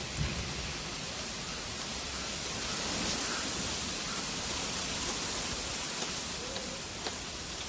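Steady, even hiss of background noise with no distinct event.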